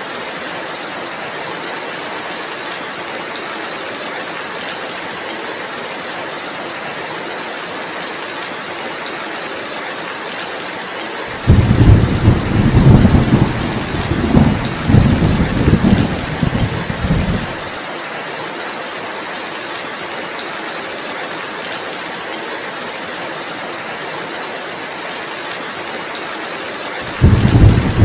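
Heavy rain falling steadily, with a loud low rumble of thunder starting about eleven seconds in and lasting some six seconds, and another rumble starting near the end.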